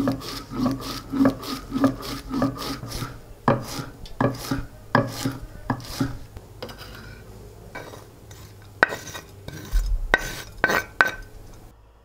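Chef's knife chopping leafy greens on a wooden cutting board, the blade knocking on the board. The knocks come as an even run at first, then as more spaced, uneven strokes, with a last quick cluster near the end.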